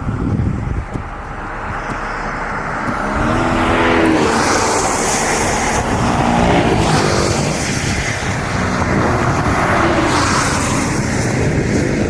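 Vehicle engine pulling and rising in pitch through several surges as it accelerates, over heavy road and wind noise.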